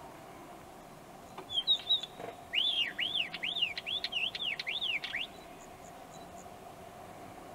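Isabelline wheatear singing: a few short high notes about a second and a half in, then a run of about nine quick rising-and-falling whistled notes, roughly three a second, lasting nearly three seconds.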